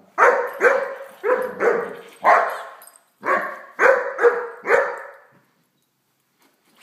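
Great Dane puppy barking at a toy dog: about nine loud barks in two quick runs, stopping about five seconds in.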